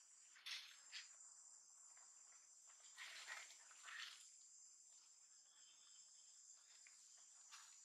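Faint, steady high-pitched drone of insects, with a few brief soft rustles.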